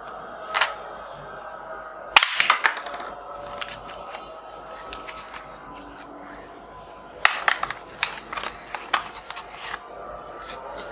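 Sharp plastic clicks and clatter from a toy shotgun being handled and loaded with a ball: a short cluster about two seconds in and a longer run of clicks from about seven to nine seconds in. Soft background music plays under it.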